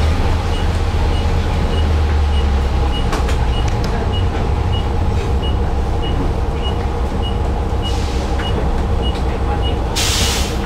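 Inside a moving trolleybus: the steady low rumble and hum of the bus and its electric drive, with a regular high tick about every half second and a short burst of hiss near the end.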